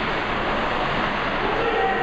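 Steady rushing ambient noise of a hockey arena, with faint indistinct voices in it.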